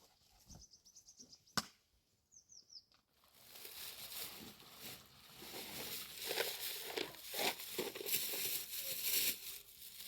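A few quick falling high chirps, like a small bird's, then from about three seconds in a loud, continuous rustling and crackling noise made of many short crackles.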